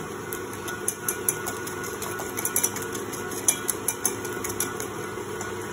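Wire whisk clicking irregularly against a stainless steel saucepan while beating eggs with sugar for a custard cream, over the steady hum of an electric mixer beating meringue.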